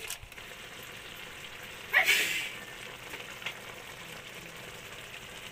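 Crabs, shrimp and odong noodles sizzling and bubbling in sauce in a wok, a steady hiss, with one brief louder sound about two seconds in.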